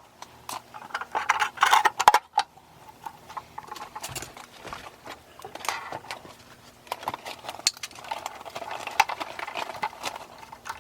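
Irregular clicks, taps and knocks of hand tools and small parts being handled, over a faint low hum.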